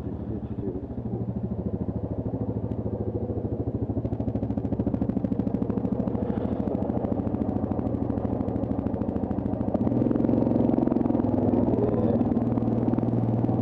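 Yamaha Grizzly ATV's single-cylinder four-stroke engine running steadily at low trail speed, growing louder about ten seconds in.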